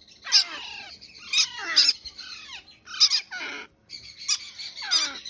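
Parrot chicks squawking: a series of about five harsh calls, each falling in pitch, roughly a second apart.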